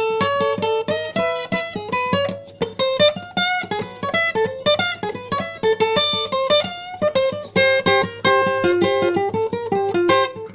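Music: an acoustic guitar picking a quick run of single notes in an instrumental passage, with no singing.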